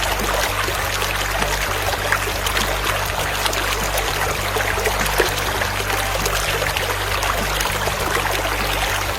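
Water running and trickling steadily with many small splashes, over a low steady hum.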